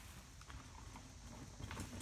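Mountain bike coming down a rooty dirt trail: faint, irregular knocks and rattles of the tyres and bike over roots, with a low rumble, growing louder toward the end as the rider nears.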